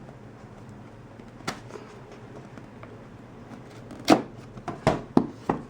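Cardboard phone box and packaging being handled and opened: a faint click about a second and a half in, then a cluster of sharp scrapes and knocks near the end.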